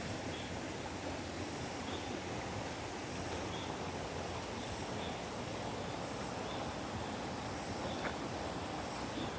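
Outdoor forest ambience after rain: a steady rushing noise, with a faint high-pitched call from insects or birds repeating about once a second.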